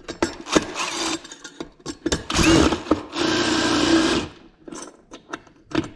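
Handheld power drill running in several short bursts, the two longest about a second each around the middle, with sharp clicks and knocks between the runs.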